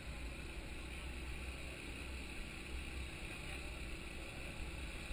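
Sport motorcycle riding at low street speed: a steady engine rumble mixed with wind noise on a camera mounted on the bike.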